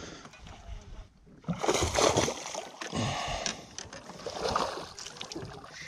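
Hooked largemouth bass splashing at the water's surface beside the boat as it is landed, in several bursts, the loudest about two seconds in.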